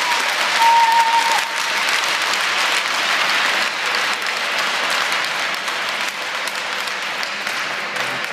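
Spectators applauding, a steady clapping throughout, with a brief held high note about a second in.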